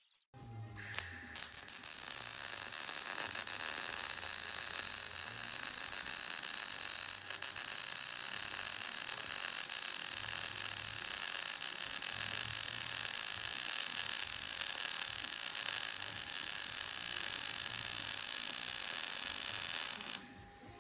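Electric arc welding on steel stake pockets: a steady crackle from the arc that runs without a break and cuts off abruptly near the end.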